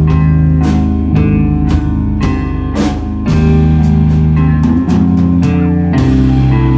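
A live rock band playing loud: electric guitar and bass hold ringing chords and low notes over a drum kit hitting about twice a second.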